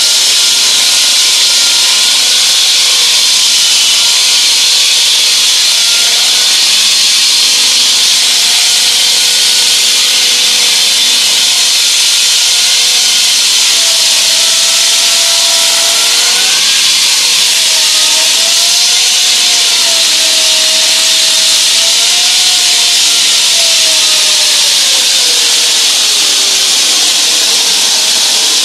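Hydraulic diamond wall saw cutting reinforced concrete: a loud, steady grinding hiss, with a fainter whine that wavers up and down in pitch.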